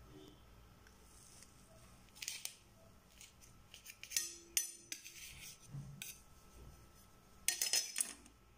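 Metal knife cutting through a soft cake and scraping against a steel plate, in short scrapes and clicks, with the loudest cluster near the end.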